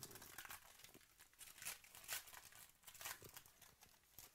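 Faint crinkling and tearing of a foil trading-card pack wrapper being torn open and crumpled by hand, in irregular little crackles.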